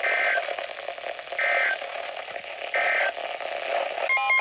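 Emergency Alert System digital data bursts over weather-radio hiss. Three short electronic squawks about 1.4 s apart mark the end of the warning. Just before the end a longer warbling data burst begins, the coded header of the next alert.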